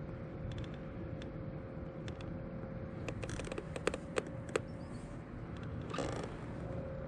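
Motorized kayak's trolling motor running steadily under way, a constant whine over a low rumble. A few sharp clicks and knocks come about halfway through, and a short rush of noise near the end.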